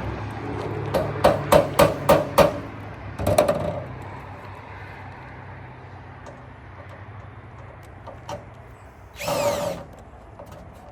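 A quick run of about six hammer taps, then a heavier knock, while the chimney cap is being fitted. Near the end comes a short burst with a rising whine.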